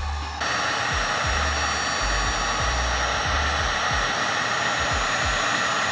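A cheap heat gun switches on about half a second in and blows steadily, shrinking a heat-shrink wire connector over a crimped wire joint.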